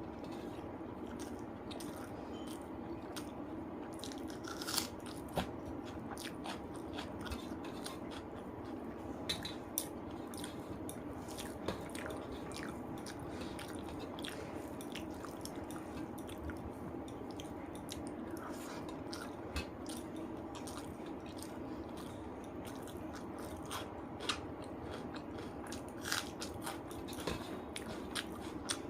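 Close-up chewing and biting sounds of someone eating rice with chicken curry: irregular wet mouth clicks and the occasional crunch, over a steady background hum.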